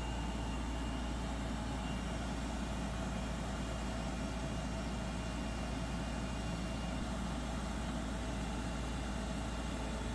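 Schramm 450WS drilling rig's engine running steadily, a constant low drone with a faint high whine above it.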